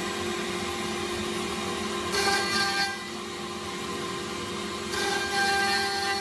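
Spindle of a home-built CNC router running with a steady whine while its bit mills white-coated chipboard. The cutting noise swells twice, about two seconds in for under a second and again from about five seconds in.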